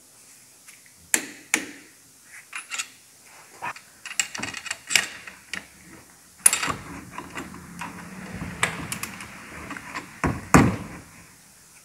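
Hand tools on the timing end of a VW 1.4 TSI engine: irregular sharp metallic clicks and clinks of a wrench and socket working the camshaft sprocket bolts as they are tightened to torque and angle. A low rubbing sound runs through the middle, and the loudest clank comes near the end.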